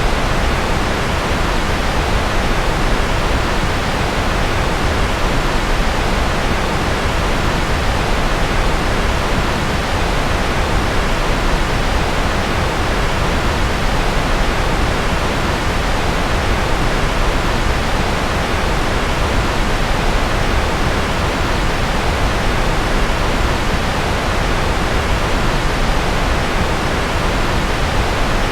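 Steady, unchanging rushing noise, even and full in the lows and thinning out in the highest treble: a continuous sleep-noise track with no breaks or events.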